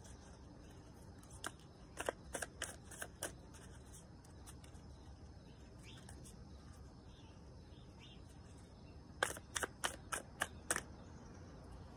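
Tarot cards being shuffled by hand, heard as two runs of short crisp clicks and flicks, the first about two seconds in and the second, quicker one of about six clicks near the end.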